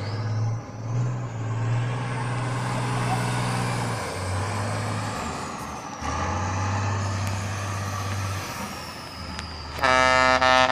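Tatra trial truck's diesel engine working hard under load, its note surging up and down, with a high whine that rises and then slowly falls away. Near the end a loud horn blast sounds.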